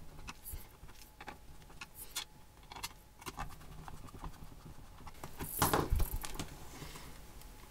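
Small clicks and scratches of a screwdriver turning screws into a 3D-printed plastic case lid. About five and a half seconds in there is a louder knock and rubbing as the plastic case is grabbed and shifted on the desk.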